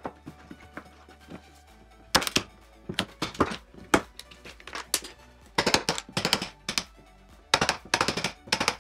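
Irregular sharp knocks and taps of hand-tool work on wood, some in quick clusters, over background music.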